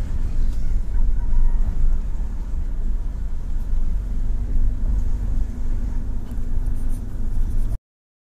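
Car cabin noise while driving: a steady low rumble of engine and tyres on the road, cutting off suddenly near the end.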